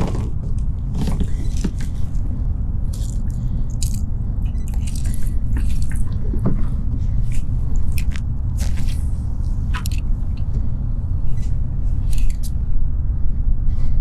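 Rustling and irregular sharp clicks of fishing tackle being handled in a kayak, as a jerkbait is got out and rigged, over a steady low rumble.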